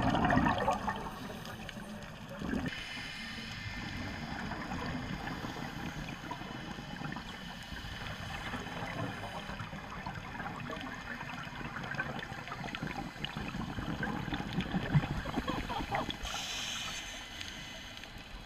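Muffled underwater sound picked up through a GoPro's waterproof housing: a steady water hiss with gurgling and many scattered faint ticks, and a couple of louder swells.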